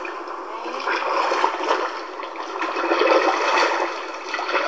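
Floodwater splashing and rushing, a rough, uneven wash of water noise, thin-sounding with no low end.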